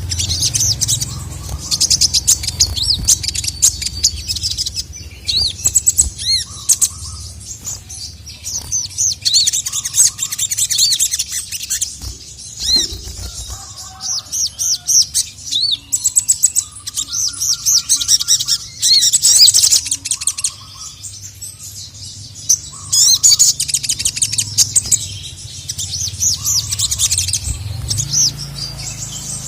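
Sogok ontong (sogon) sunbird singing: fast, high-pitched chattering phrases in bursts every few seconds, with short lower notes between them, over a steady low hum.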